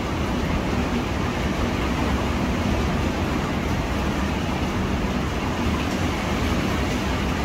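Xiaomi handheld garment steamer running steadily, giving a low hum with a rushing hiss as it steams the fabric.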